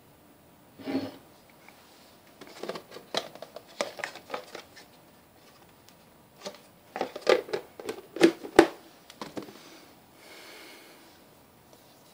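Hands handling craft materials and tools on a table: scattered clicks, taps and rustles in clusters, loudest a little past the middle.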